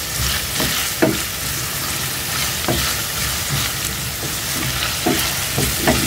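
Sliced red onions sizzling in hot oil in a stainless steel pan, stirred with a wooden spoon that scrapes and taps against the pan several times.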